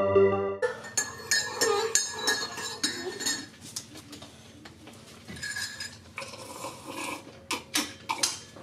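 Small hard objects clinking and knocking together in irregular clatters, with short ringing tones, busiest in the first few seconds and sparser later.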